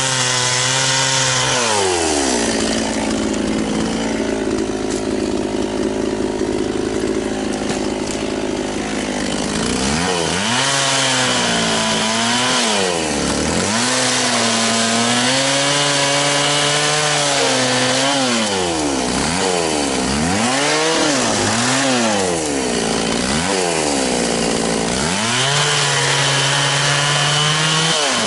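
Echo CS-670 two-stroke chainsaw dropping to idle for several seconds. It then revs and cuts into wood, the engine pitch sagging as the chain bites and rising again between cuts, several times over.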